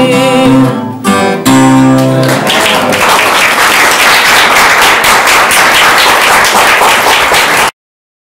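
The last held sung note and chords of a song on acoustic guitar, ending about two and a half seconds in, then applause for about five seconds that cuts off suddenly near the end.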